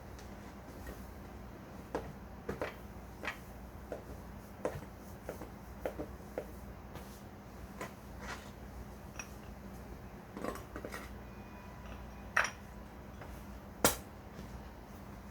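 Kitchen clatter: scattered light clinks and knocks of dishes and utensils being handled, with two louder sharp knocks near the end, over a low steady hum.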